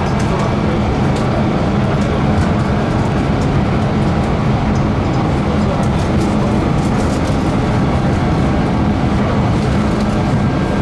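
Copenhagen Metro driverless train heard from inside the car while running at speed through a tunnel: a steady, loud rumble of wheels on rails, with scattered faint ticks.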